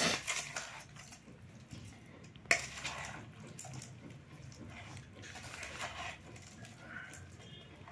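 A metal spoon stirring and tossing spiced lapsi (hog plum) pickle in a bowl: wet, squishy mixing with scrapes and clinks of the spoon against the bowl. One sharp clink comes about two and a half seconds in.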